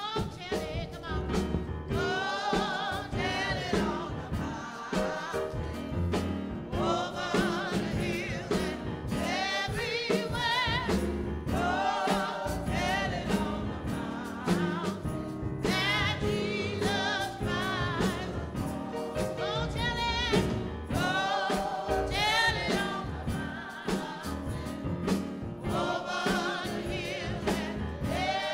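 Gospel music: a choir singing, with instrumental accompaniment underneath.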